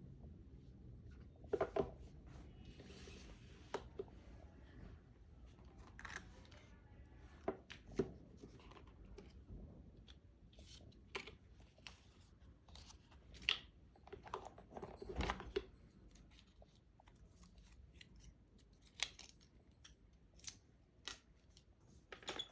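Hands unboxing an iPhone 12: scattered clicks and taps of the box, lid and phone being handled, with short rustles and tearing of the packaging.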